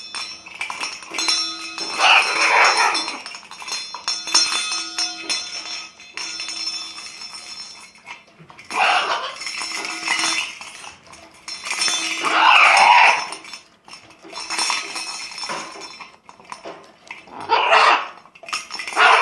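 Blue-and-gold macaw squawking loudly in several outbursts over a continuous metallic jingling and clinking from a shaken noisemaker.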